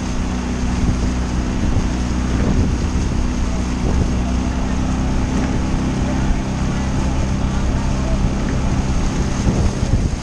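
Motorboat engine running at a steady speed, a low even hum, with wind buffeting the microphone and water noise.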